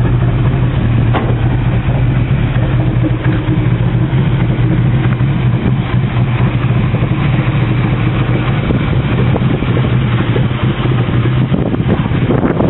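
Opel Kadett E's four-cylinder engine, fitted with individual throttle bodies and a Remmus sports exhaust, idling steadily. Near the end it is drowned by wind rushing on the microphone.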